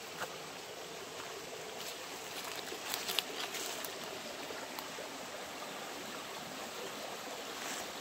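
Small rocky rainforest stream trickling and running over stones, a steady water noise, with a few short high clicks about three seconds in.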